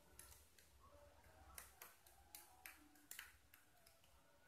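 Faint, irregular clinks of a metal spoon against a small drinking glass while stirring a thick bait mix of egg, rice and fish pellets.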